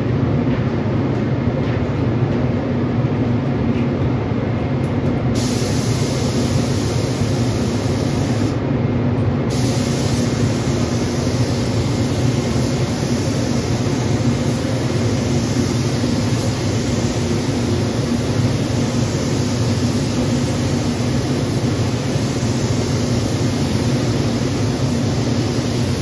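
Compressed-air paint spray gun hissing as 2K primer is sprayed onto a truck door: a short pass of about three seconds starting some five seconds in, a one-second stop, then one long continuous pass. A steady low rumble runs underneath throughout.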